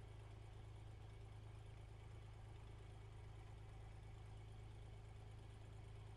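Cessna 182RG's six-cylinder Lycoming O-540 engine idling on the ground, a faint, steady low drone.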